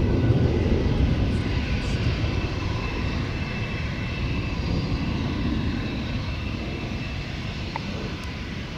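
Airliner engines rumbling with a few steady higher tones, slowly fading as the aircraft moves away.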